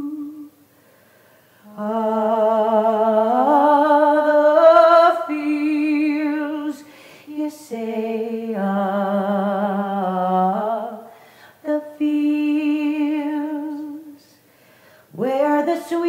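A woman singing unaccompanied: long held wordless notes with vibrato, in several phrases separated by short breaths.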